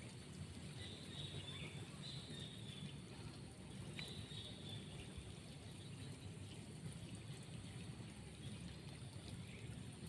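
Steady sound of running water trickling, with faint high bird chirps a few times in the first half.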